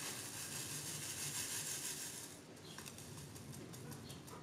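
Round acrylic diamond-painting drills pattering in a plastic tray: a soft, high hiss for about two seconds, then a few light clicks.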